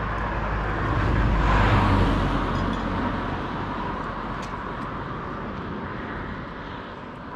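A road vehicle passing by. It swells to its loudest about two seconds in, then slowly fades away.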